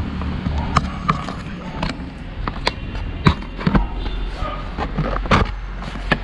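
A length of PVC pipe being worked over a motorcycle's front fork tube by hand: irregular hollow plastic knocks, clicks and scrapes, a dozen or so sharp ones, over a low steady rumble.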